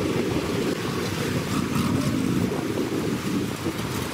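A cab-over 4x4 truck's engine running as it wades into a fast-flowing river, mixed with the steady rush of the river and water surging against the truck.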